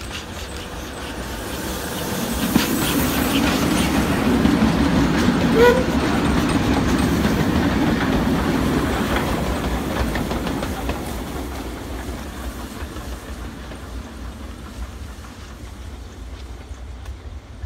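Double-headed steam train passing close by: the rumble of the locomotives and coaches builds, peaks with wheels clicking over the rail joints and a short squeal about six seconds in, then fades as the train moves away.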